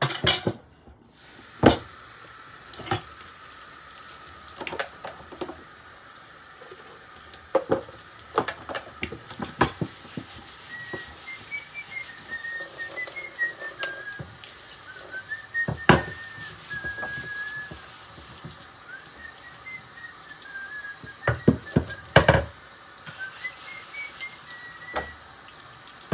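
Dishes and utensils clattering and clanking at a kitchen sink during washing-up, over a steady wash of running tap water. Partway through, a person starts whistling a wavering tune that goes on to near the end.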